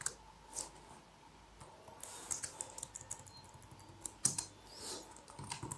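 Typing on a computer keyboard: irregular keystrokes coming in short scattered runs.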